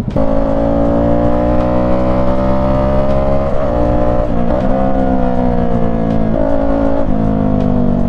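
FKM 3GP 300cc motorcycle engine pulling at a steady pitch while riding, fitted with an aftermarket exhaust. The note dips briefly twice about halfway through and twice more near the end, over wind noise.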